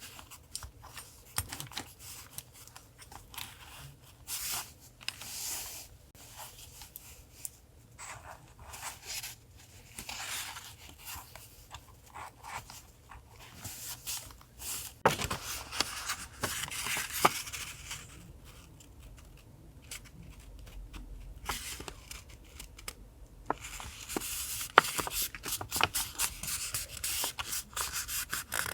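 Paper and stickers being handled for a collage journal: irregular rustling and rubbing in short bursts, with sharp taps and clicks.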